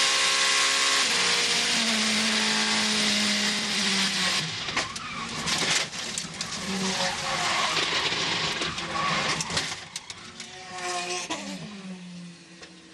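Onboard an Oreca 07 LMP2 car, its Gibson V8 running at speed under a dense hiss. About four and a half seconds in, another car hits it: the steady note breaks into knocks, scrapes and tyre skidding as the car spins off the track, and the engine pitch swings up and down.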